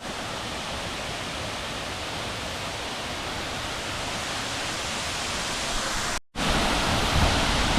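Waterfall: a steady, even rush of falling water. About six seconds in it breaks off briefly and comes back louder and deeper.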